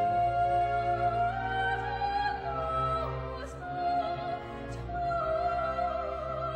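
Classical music: an operatic singing voice holding long notes over orchestral accompaniment.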